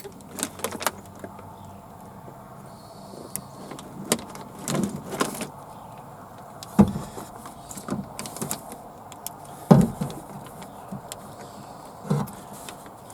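Scattered clicks, knocks and rattles of hands working inside a car door, tugging a wiring connector loose, with two sharp knocks about seven and ten seconds in.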